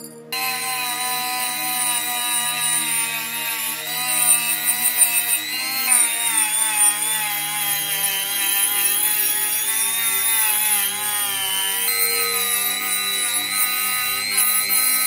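Handheld rotary tool fitted with a small brass wire wheel brush, running at high speed and scrubbing rust off a metal oil-lamp burner. The motor whine starts suddenly and dips and wavers in pitch as the brush is pressed against the metal.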